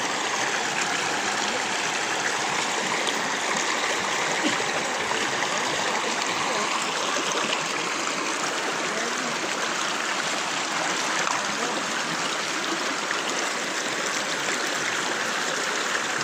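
Shallow rocky stream running over and between stones, a steady rush of water.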